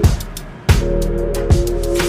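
Background music with a steady beat: held chords over kick-drum hits and cymbal ticks. The chords drop out briefly at the start and come back with a drum hit less than a second in.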